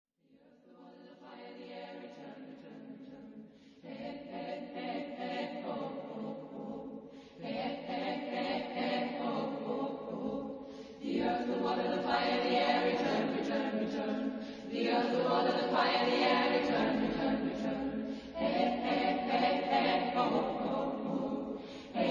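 Choir singing long held chords in phrases of about three to four seconds, starting softly and growing louder over the first half.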